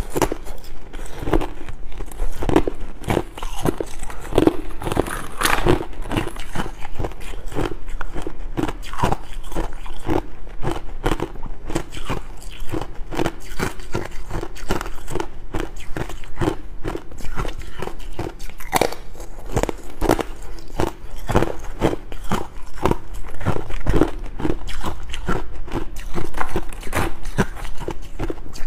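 Close-miked crunching as a person bites and chews hard discs of yellow ice, a fast, uneven run of crisp cracks several times a second.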